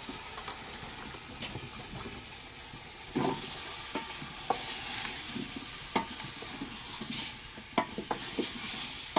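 Pieces of matoke (green cooking banana) being put into a pot of sizzling food, with a series of knocks against the pot over the steady sizzle. The loudest knock comes about three seconds in, and a quick pair near the end.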